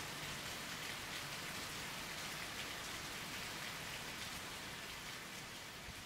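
Steady, dense patter of falling water, like rain, easing slightly softer near the end.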